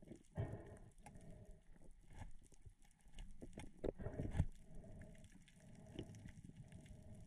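Muffled water and handling noise picked up by a GoPro inside its waterproof housing during a spearfishing dive, with a few louder knocks about half a second in and around four seconds in.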